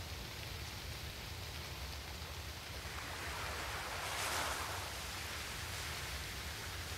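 A steady rushing hiss, like rain or surf, over a low hum. It swells to a louder rush about four seconds in, then settles back.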